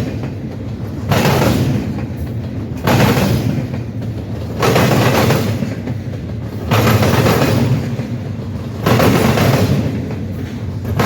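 Train wheels pounding over a railroad diamond crossing: a steady rolling rumble broken by a loud bang and clatter about every two seconds as the cars pass over the crossing.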